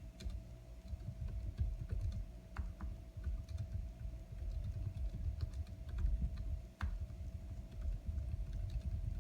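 Continuous typing on a computer keyboard: a steady, irregular run of soft, dull key strokes with light clicks.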